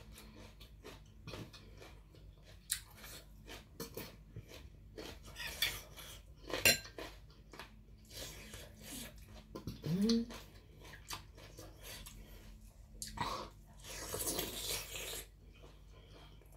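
Scattered clinks and taps on a ceramic plate as squid pieces are picked up from it, with soft chewing sounds between. A brief rising hum about ten seconds in.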